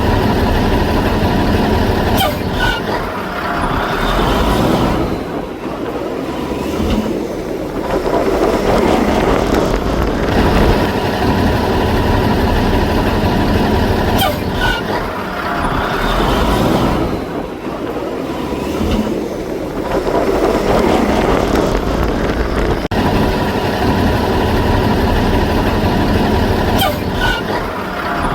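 Heavy vehicle engine sound effect, a truck or earthmover running with swelling and easing noise over a steady low hum. A short click comes in the same place each cycle, and the pattern repeats about every twelve seconds as a loop.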